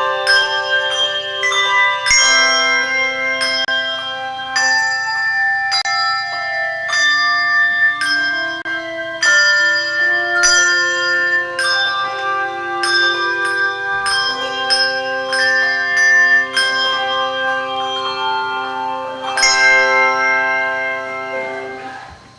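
Handbell choir playing a piece: chords of struck handbells with long ringing notes, one after another, dying away at the very end.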